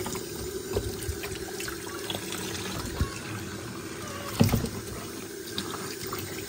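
Tap water running steadily into a sink, with a few light knocks and a louder thump about four and a half seconds in.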